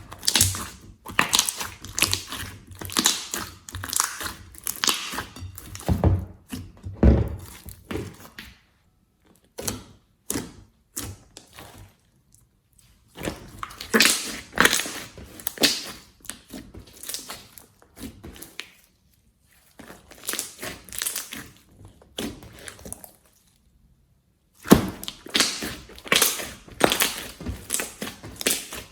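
Slime being squeezed and pressed by hand, making dense crackling and popping in bursts of a few seconds with short pauses between.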